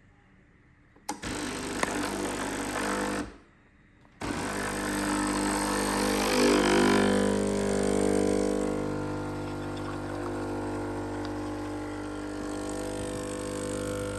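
Sunbeam EM4300 espresso machine's vibratory water pump buzzing as it pumps water through with a hissing, gurgling flow. It runs for about two seconds, stops for about a second, then runs again steadily for about ten seconds, cutting off at the end. This is a test run after the switch was replaced.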